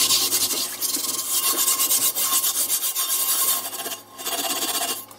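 Hand scrubber scrubbing the wet surface of a cast iron griddle in quick back-and-forth strokes, with a short pause about four seconds in. This is a quick scrub-down that leaves the seasoning on.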